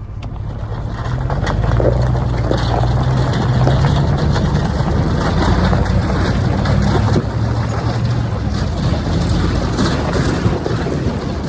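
Vehicle engine running under load as it picks up speed, with heavy wind noise on the microphone and a rattle of small clicks over the top.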